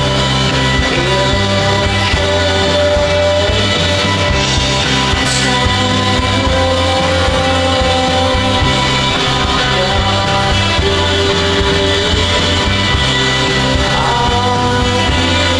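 Background rock music with a singing voice, guitar and a steady beat.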